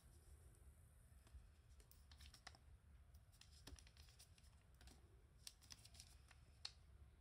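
Near silence: faint room tone with a few soft clicks and crinkles from a plastic drink bottle being picked up and turned in the hand, bunched around the middle and near the end.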